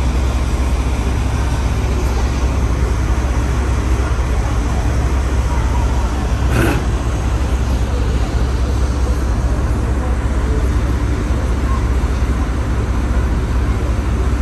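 Tour boat's engine running with a steady low drone. A single short sharp sound stands out about halfway through.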